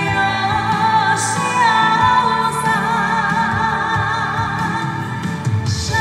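Female vocalist singing a Chinese ballad with instrumental accompaniment, holding long notes with vibrato.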